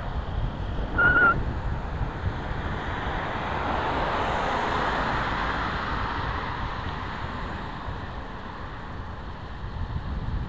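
Wind buffeting the microphone with road rumble from the moving ride. About a second in there is a brief high whistle-like tone.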